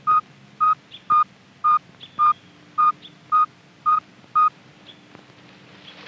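Radio telemetry receiver beeping a good signal from the radio transmitter on an eagle's tracking harness: nine short, evenly spaced tone pips, about two a second at one steady pitch, stopping about four and a half seconds in.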